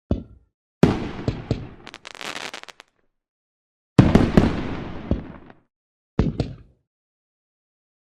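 Fireworks sound effect: a short bang at the start, then a burst of several sharp bangs with crackling about a second in, a big bang with trailing pops and crackle about four seconds in, and a smaller double bang about six seconds in. Dead silence falls between the groups.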